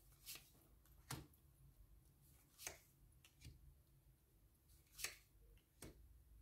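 Quiet, scattered taps and clicks of tarot cards being handled and laid down, about six in all, the sharpest about five seconds in.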